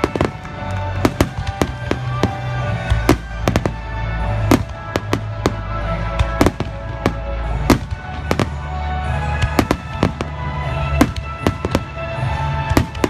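A fireworks finale barrage: dozens of sharp shell bursts, a few every second, over loud music with a heavy bass line and held chords.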